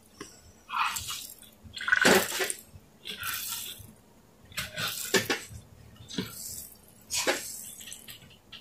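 Water splashing and sloshing in a bowl as makeup sponges are pushed down and pressed under by hand, in about half a dozen irregular splashes.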